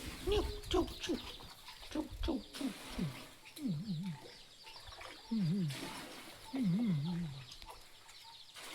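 A dog vocalising: a string of short, falling whines, then three longer warbling howl-like calls whose pitch wobbles quickly up and down.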